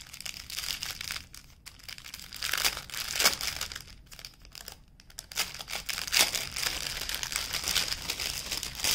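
Plastic packaging and canvas of a diamond painting kit crinkling and rustling in irregular handfuls as the canvas and drill packets are handled.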